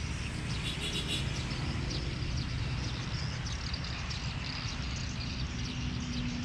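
Steady low rumble of city traffic, with scattered short high chirps of small birds over it.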